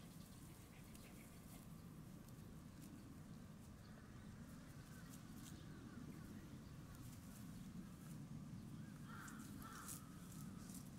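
Near silence: faint outdoor background with light ticks and rustling, and a faint short animal call about nine seconds in.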